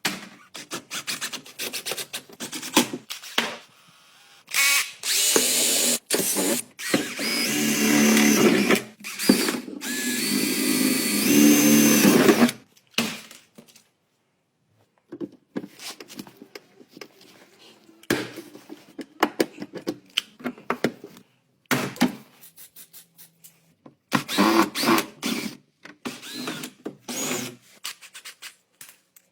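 Power tools running in short, edited-together spurts with abrupt cuts between them. Some spurts hold a whine that steps up in pitch.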